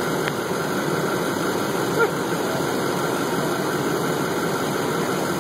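An engine idling steadily, with a single short click about two seconds in.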